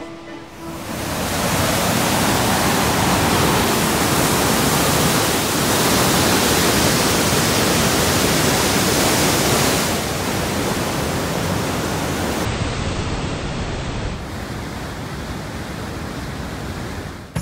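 Steady rushing of a huge waterfall and river rapids, Niagara's Horseshoe Falls and the rapids above its brink, a little quieter from about ten seconds in.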